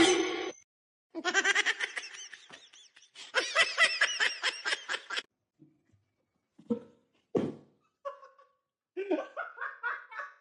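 A person laughing in rapid bursts for several seconds, then two short vocal sounds and another short bout of laughter near the end.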